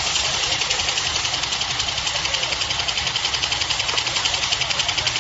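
Hand towel paper band saw cutting machine running, with a fast, even rhythmic clatter.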